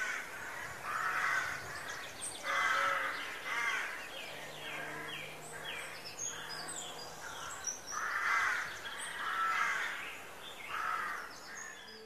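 Crows cawing over and over, about one call a second, with small birds chirping faintly.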